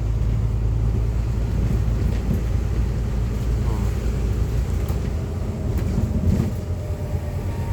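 Steady low engine drone and road rumble of a moving bus, heard from inside the passenger cabin.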